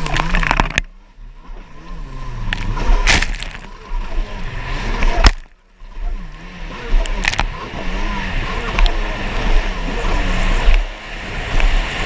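Stand-up jet ski engine revving up and down at race pace over choppy water, with spray and water slapping the hull. The sound drops away suddenly twice, about a second in and again around five and a half seconds.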